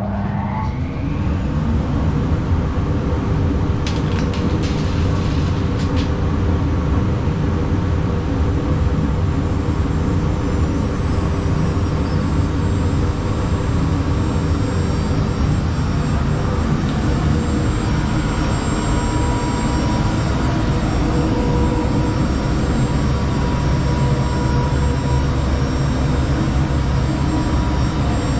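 Spindle motor of a home-built manual CNC router, driven by a variable-frequency drive, starting up with a whine that rises in pitch over the first second, then running at a steady high whine over a loud, steady rush of dust extraction. A few short clicks come about four to six seconds in.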